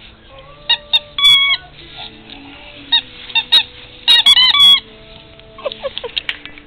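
Squeaky dog toy squeaked again and again: single squeaks at first, a quick cluster of them about four seconds in, and a few lower-pitched squeaks near the end. Faint background music runs underneath.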